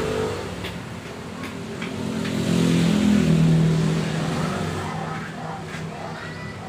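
A motor vehicle's engine passing by, swelling to its loudest about three seconds in and then fading away, with a few faint clicks of wires being handled.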